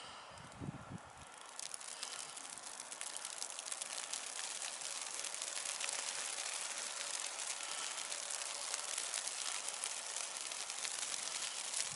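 Wind-driven snowfall: a steady hiss with a dense, fine crackle of flakes striking, swelling over the first couple of seconds and then holding. A brief low rumble comes about a second in.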